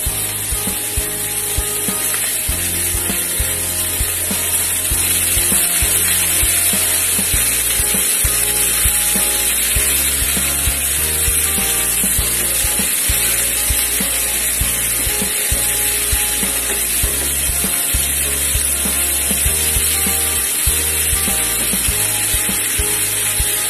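Shredded carrots and bean sprouts sizzling in a hot frying pan as they are stirred with a spatula, a steady hiss. Background music with a stepping bass line plays underneath.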